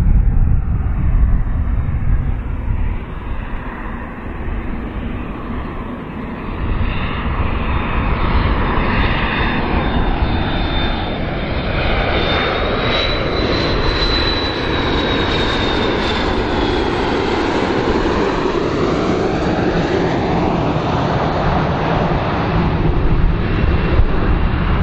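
McDonnell Douglas MD-82 airliner's rear-mounted Pratt & Whitney JT8D turbofans flying past on approach. A steady jet rumble carries a high whine that grows to its peak about halfway through and then falls in pitch, with a swirling, phasing sound as the aircraft goes by.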